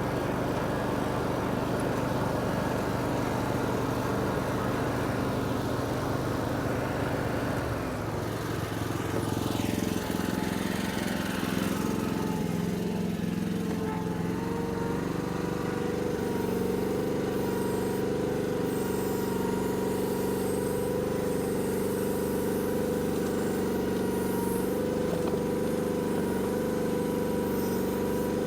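Mini excavator engine running steadily. Its note changes about eight seconds in, then runs evenly again.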